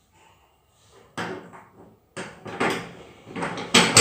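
A series of knocks and clatters of household things being handled, with sharp strikes that grow louder toward the end.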